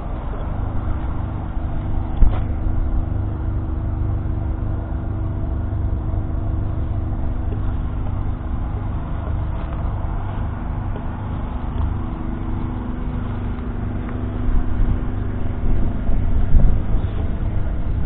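John Deere 6215R tractor's 6.8-litre six-cylinder diesel running steadily, with a deep rumble and a steady hum. A single knock comes about two seconds in, and the sound swells unevenly near the end.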